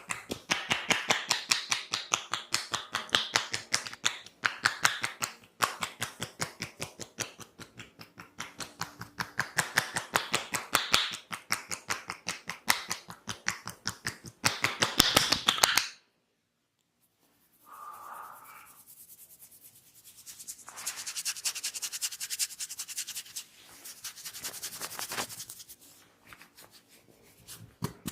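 Massage tapping: a barber's hands strike the head and shoulders in rapid rhythmic slaps, several a second, in long bursts. They break off about sixteen seconds in, and softer rubbing and rustling follows before the tapping starts again near the end.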